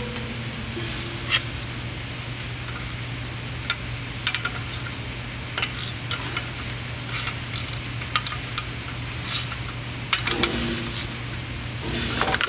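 Small metal clicks and rattles of air-line fittings and hoses being handled and disconnected, over a steady low hum. A few short squeaky notes come about ten seconds in and again near the end.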